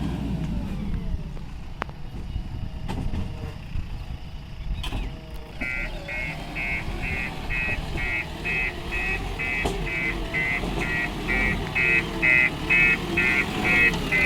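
Heavy diesel engine running low. About six seconds in, a vehicle's reversing alarm starts beeping rapidly, two to three beeps a second, the sign of a machine backing up.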